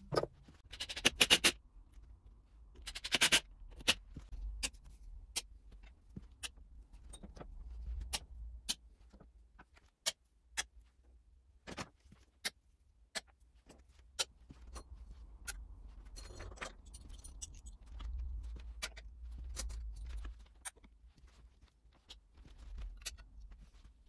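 Steel hand tools clinking as they are hung on wall hooks and snapped onto a magnetic tool strip. There is a short metallic rattle about a second in and again around three seconds, then single sharp clicks every second or so.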